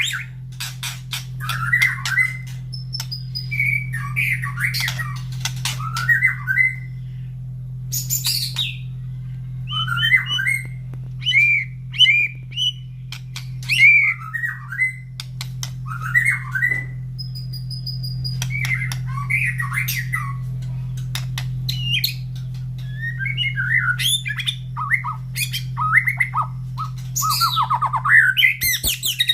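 White-rumped shama singing energetically: a run of short, varied phrases of whistles, trills and harsh chattering notes, broken by sharp clicks. A steady low hum runs underneath.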